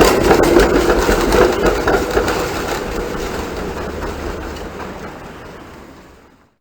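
Sound effect of a Hong Kong tram running on its rails: a rattling clatter of wheels over the track with a steady hum, fading out over the last couple of seconds.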